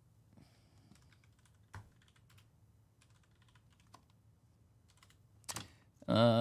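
Faint typing on a computer keyboard, quick light key clicks with a few louder clacks, as a player's name is looked up; a man's voice starts just before the end.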